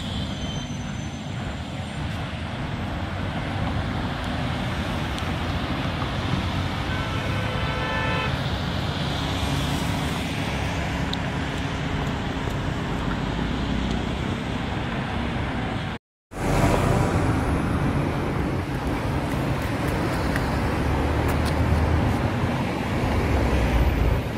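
Steady city road traffic: cars and buses passing on a wide avenue, a continuous rush of engines and tyres. A short horn toot sounds about seven seconds in, and about two-thirds through the sound cuts out for a moment before the traffic resumes.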